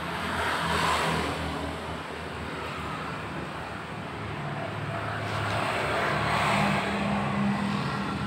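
Engines of passing motor vehicles, a steady hum that swells about a second in and again around six seconds.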